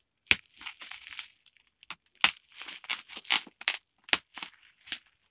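Plastic bubble wrap around a boxed blender being cut with scissors and pulled open: crinkling and tearing with a string of irregular sharp crackles.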